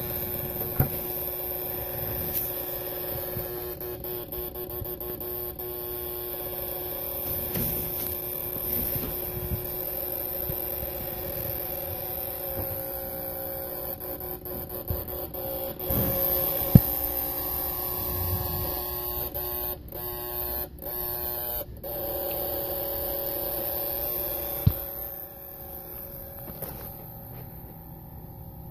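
Fifth-wheel camper's AC power converter buzzing and whining steadily, several pitched tones over a high hiss, with a few sharp clicks; it eases down near the end. This is the abnormal converter noise, which the owner thought was caused by bad or dropping shore power, though the supply read 117 to 120 V while it was happening.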